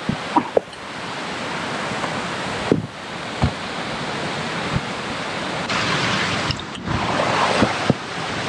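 A steady rushing noise, dropping out briefly twice, with scattered short knocks and scrapes of hiking boots and loose stones on rock as a person climbs down a steep boulder slope.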